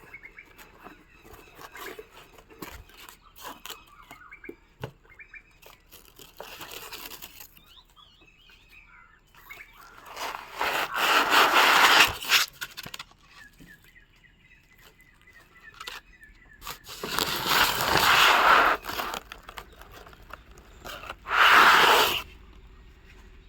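Packaging being torn and rustled open, in three loud noisy bursts about ten, seventeen and twenty-one seconds in, with quieter handling scrapes and clicks between.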